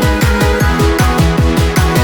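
Electronic background music with a fast, steady beat of falling bass thumps under sustained synth tones.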